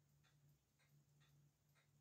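Faint, fairly regular ticking of an antique J. Schmidt repeater pocket watch movement, about three ticks a second, over a low steady hum.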